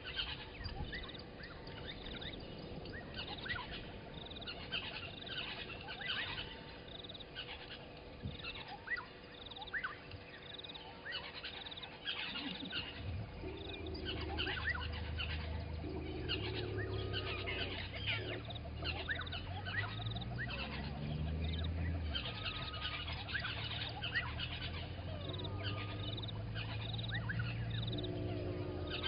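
Dawn chorus of many wild birds giving overlapping short chirps and whistles. About halfway through, a low steady drone joins in, and its pitch rises briefly around two-thirds of the way through.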